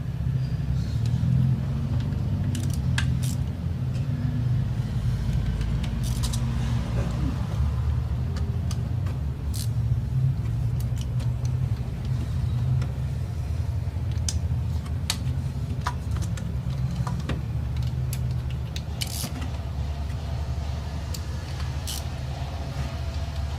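Scattered sharp metallic clicks and clinks of hand tools and engine parts being handled, over a steady low rumble of background machinery.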